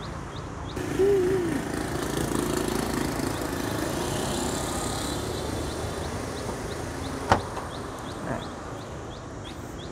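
Street traffic with a passing vehicle's engine rising and fading in the first half. About seven seconds in, a single sharp click as the Hyundai Accent's trunk latch releases and the lid swings up, followed a second later by a softer knock.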